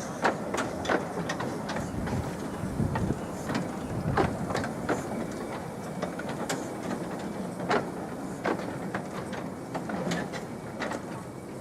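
Miniature railway train running along the track, a steady rumble with irregular clicks and clacks of the wheels over the rail joints.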